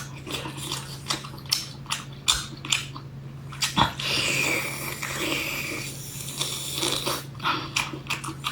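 Close-up eating sounds of a person chewing and biting seafood. There are many quick moist clicks and smacks, and a longer continuous wet noise about four seconds in.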